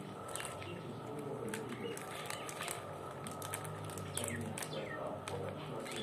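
Rose-ringed parakeet biting and tugging at a plastic snack wrapper: a run of sharp crinkles and ticks from the packet. Two short falling bird chirps come a little past four seconds in.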